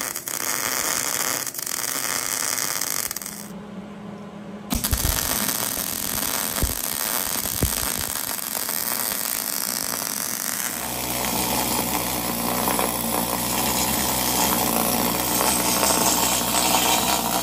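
MIG welder arc crackling as a bead is laid on a cast-iron Dana 60 axle housing, with a short break about four seconds in and a few sharp knocks after it. About eleven seconds in, a pneumatic scaling tool starts hammering steadily on the fresh weld, knocking the scale off.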